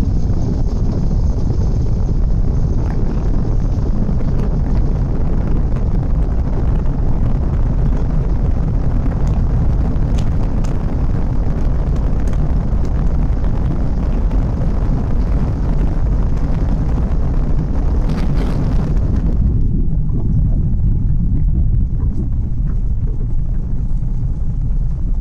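Heavy wind buffeting on a mobile phone's microphone in a moving car, over the car's road noise: a loud, steady rumble. The higher hiss above it drops away suddenly near the end.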